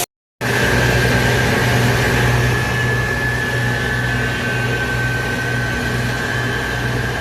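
Farm harvest machinery running steadily: a low engine drone with a thin, high, steady whine over it. It comes in after a split-second gap right at the start.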